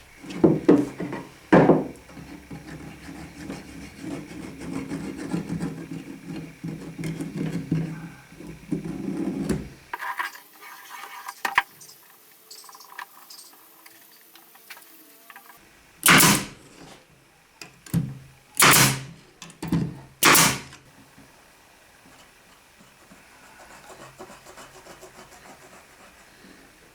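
Hand work on wood: a couple of sharp knocks, a long stretch of rubbing or scraping, then four loud strokes a second or two apart.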